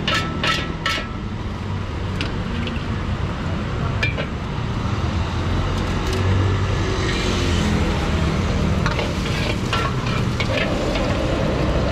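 Rice being stir-fried in a wok with a metal ladle: a quick run of ladle clanks against the wok in the first second and a few more later, with scraping and sizzling, which swells near the middle, over the steady rush of the gas wok burner.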